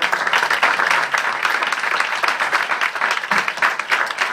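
Audience applauding: many hands clapping at once, loud and steady.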